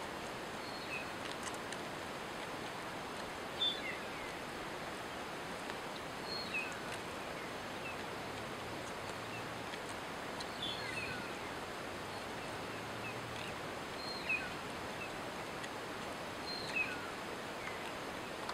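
A bird gives short, high chirps every two to four seconds over a steady outdoor background hiss.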